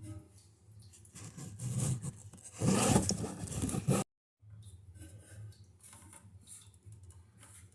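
Handling noise from work on toilet tank parts: irregular rubbing and scraping, loudest in a dense rasping stretch about three seconds in, then a sudden cut and softer scattered scratches over a low hum.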